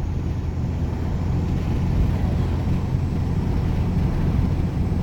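2007 Ram 2500's 5.9 Cummins turbo-diesel inline-six running at steady low road speed, heard from the cab with the windows down, mixed with road and wind noise. No separate whistle stands out.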